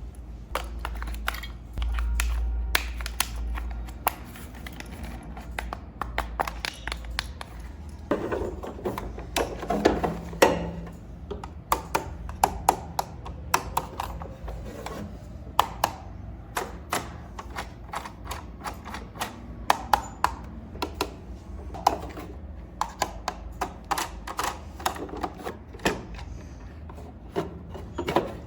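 Irregular clicks and taps of hard plastic toy parts being handled, with no steady rhythm.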